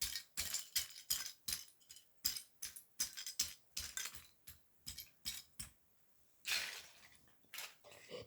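LEGO bricks clinking and clattering as they are handled and pushed around by hand, in quick irregular clicks, with a longer rattling slide about six and a half seconds in.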